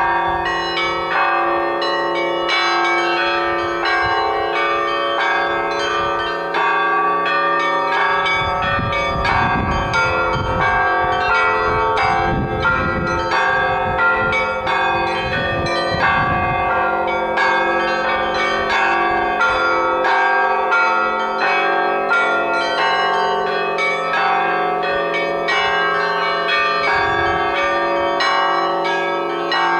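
Russian church bells rung together in a continuous peal: quick, frequent strikes of the smaller bells over the lasting hum of the deeper bells, all layered and overlapping.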